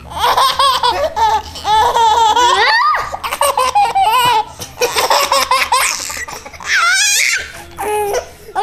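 Baby laughing in several bouts of high, pulsing giggles, with short breaks between bouts.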